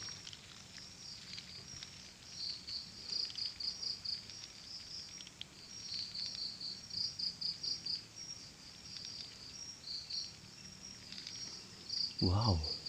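Crickets chirping at night: short trains of high-pitched chirps, several to a burst, repeating with brief gaps.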